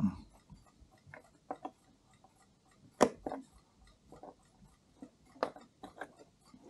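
Small metallic clicks and taps, irregularly spaced, as tweezers and fingers handle small steel and brass parts on a Mauthe chime clock movement. The sharpest click comes about three seconds in.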